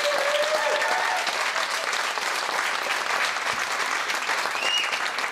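Audience applauding, a dense steady clapping with a few voices heard over it.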